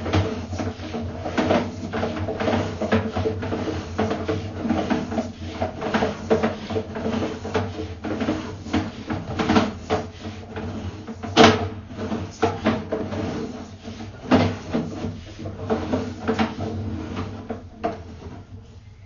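Sewer inspection camera's push cable being pulled back out of the line and onto its reel: irregular knocks and rattles, one sharper knock in the middle, over a steady low hum.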